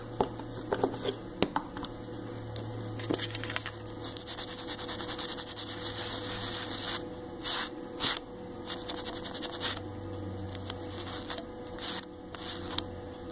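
A metal nail-stamping plate being wiped clean with a pad. There is a stretch of steady rubbing in the middle, then a string of short, quick wiping strokes.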